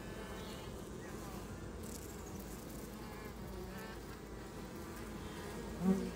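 Honeybees buzzing over an open hive during a frame inspection: a steady, even hum from a calm colony. A short louder sound comes near the end.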